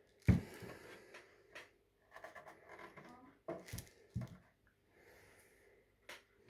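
Handling noise from a cable box being turned over in the hand: a sharp knock about a third of a second in, then scattered scrapes, rustles and light clicks.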